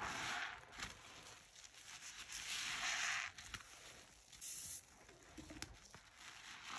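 Foam-soaked kitchen sponge being squeezed by a gloved hand in thick soapy suds: wet squishing and crackling of bubbling foam in a few squeezes, the longest about two and a half seconds in, with a short hiss about four and a half seconds in.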